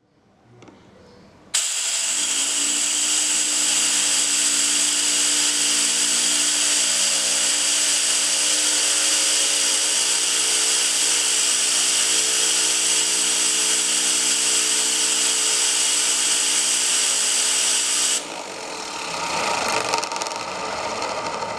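Compressed air hissing from a blow-gun nozzle into a 3D-printed PLA Tesla turbine, with the spinning disc rotor adding a steady hum of pitched tones that climbs briefly as it speeds up, then holds. About eighteen seconds in the air cuts off suddenly and a fainter whirr of the rotor coasting down follows.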